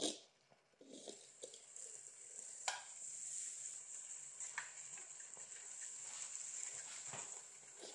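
Steam hissing steadily out of a model steam engine's small brass boiler once a valve on top is opened, with a click as the valve is turned and a few light metallic clicks through the hiss.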